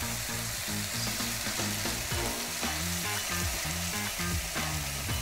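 Sliced cremini mushrooms sizzling as they sauté in hot oil in a nonstick frying pan, with a spatula scraping and tapping in the pan as they are spread out.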